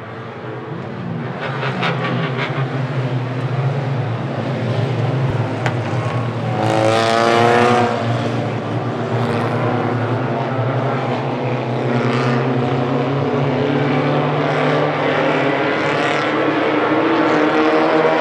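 A pack of compact tuner-class race cars running at speed on a short oval, several engines blending into one steady drone that fades in over the first couple of seconds. About seven seconds in, one car passes close and its engine note climbs, the loudest moment.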